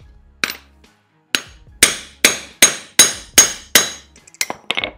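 Hammer blows on a socket used as a drift, knocking the worn, rough 6203 bearing out of a belt tensioner pulley. About eight ringing metal strikes come at roughly two to three a second, then a few lighter quick taps near the end.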